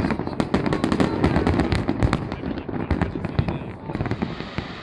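Aerial fireworks bursting in quick succession, many overlapping sharp bangs and crackles, thinning out and getting quieter near the end.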